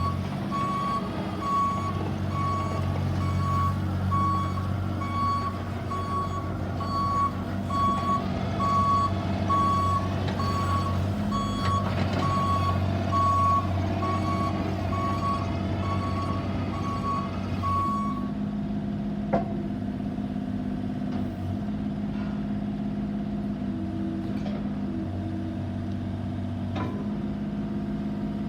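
Bobcat E32i mini excavator running, its travel alarm beeping steadily a little over once a second over the engine hum, which signals the machine is tracking. The alarm stops about two-thirds of the way through, while the engine keeps running, with a few light knocks.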